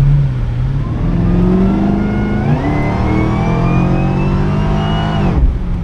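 A boosted car engine making a full-throttle pull, its pitch climbing steadily for about four and a half seconds with a faint rising whine above it, then dropping sharply as the throttle is released near the end. The boost only reaches 6 pounds on this run.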